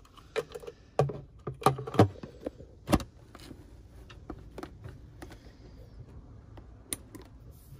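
Sharp plastic clicks and knocks as the hatch lid is fitted onto a carbon-finish bait boat hull over its battery compartment, several loud ones in the first three seconds. Fainter taps follow, and there is one more sharp click near the end as the push-button power switch on the lid is pressed.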